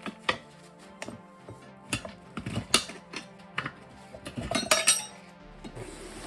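Metal hand tools clinking and knocking on a motorcycle wheel as the old tires are worked off the rims: a scatter of sharp clanks, thickest through the middle. Background music runs underneath.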